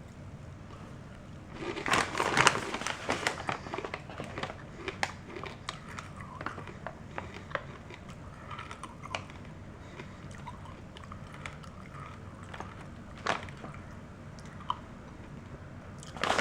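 Close-up chewing and crunching of hard Thai coconut mini crunch bars: a burst of loud crunching about two seconds in, then scattered, fading crunches and clicks as they are chewed.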